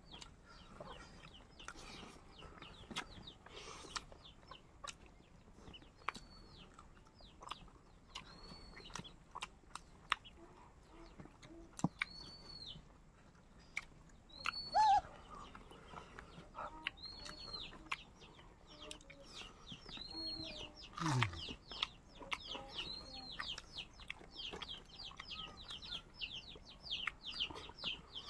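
Birds calling: a high arched call repeated roughly every second, then a quick run of short high chirps near the end, over scattered small clicks and knocks.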